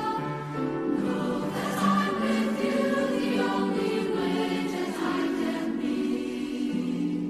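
Mixed youth choir of girls' and boys' voices singing in harmony, holding long notes that shift from chord to chord.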